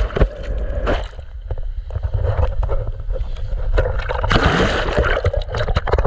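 Water sloshing and splashing as an inflatable boat capsizes, heard through a waterproof camera that goes under the surface, muffled for a few seconds, then comes back up. A louder burst of splashing about four and a half seconds in.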